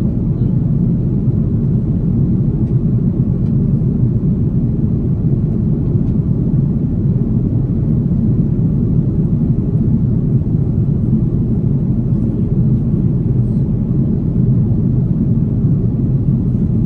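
Cabin noise of an Airbus A330neo in flight, heard from a window seat: a steady low rumble of its Rolls-Royce Trent 7000 engines and the air rushing past the fuselage, unchanging throughout.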